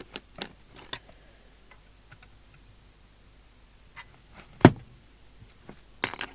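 Light clicks and taps of hands and a tool working on a CB radio chassis on the bench, with one sharp knock a little past halfway and a few quick clicks near the end.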